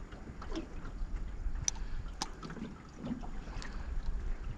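Low wind rumble on the microphone over a small boat on the water, with a few short light clicks and soft knocks as the side-cast reel is handled.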